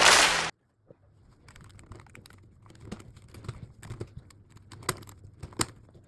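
Plastic pieces of a DaYan Tengyun 3x3 speed cube clicking and clacking as they are handled: a run of irregular sharp clicks, the cube just cleaned and put back together and still unlubricated. It follows a loud noisy burst that cuts off about half a second in.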